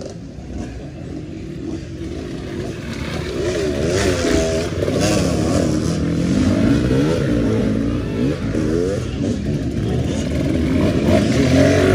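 Motocross dirt bike engines revving on a dirt track, their pitch rising and falling over and over as the bikes throttle up and ease off.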